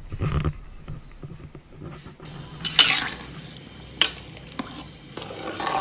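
Metal spoon stirring rice in boiling water in a large aluminium pot, scraping, with two sharp knocks against the pot about three and four seconds in.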